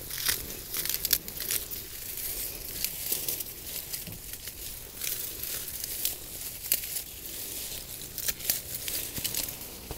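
Hand pruners snipping through bunches of iris leaves, an irregular run of sharp snips and crunches with the rustle and crinkle of the foliage being gripped and pulled.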